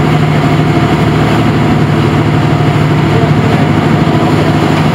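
Fishing boat's engine running steadily underway: a loud, unbroken low drone with a steady hum.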